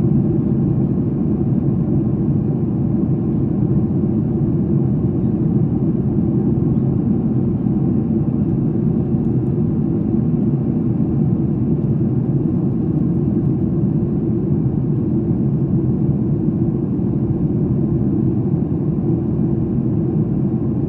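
Steady engine and airflow noise inside an airliner cabin in flight, an even low rumble.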